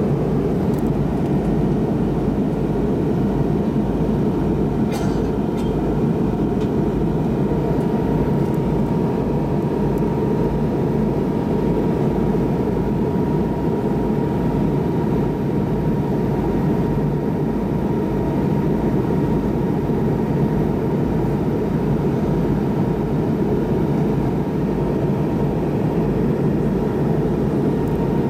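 Steady cabin noise inside an MD-88 airliner descending on approach: a deep, even rush of airflow and engines, with a faint steady whine above it.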